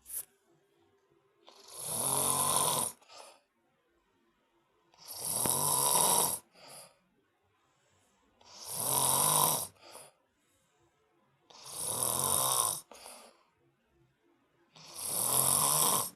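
A sleeping man snoring loudly and rhythmically: five long, rasping snores about three to three and a half seconds apart, each followed by a brief softer breath.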